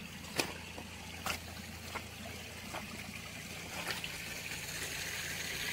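Water trickling, with scattered small splashes and knocks in the first half; the trickling grows steadier and louder toward the end.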